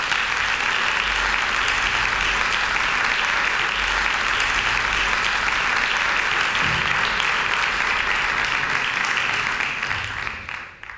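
Audience applauding steadily, the clapping fading away near the end.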